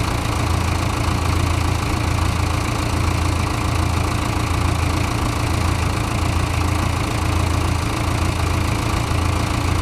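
Engine of a JLG 400S telescopic boom lift running steadily with a low, even hum.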